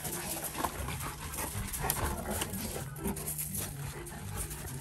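Two large dogs, a Newfoundland and a French mastiff, play-fighting: dog vocalizations mixed with many short scuffs and crunches of paws scrabbling on gravel.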